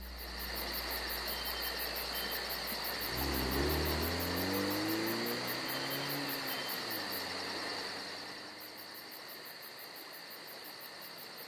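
Crickets chirping steadily in a fast, even pulsing trill. From about three seconds in, a car engine is heard passing, its pitch bending and then dropping away at about seven seconds.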